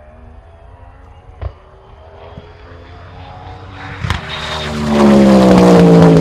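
Twin-turbocharged Ford modular V8 of the M2K Ford GT at full throttle, approaching at very high speed: the engine note climbs slowly in pitch, with a sharp crack about a second and a half in and another about four seconds in. The car then gets much louder as it passes close by, its note falling in pitch.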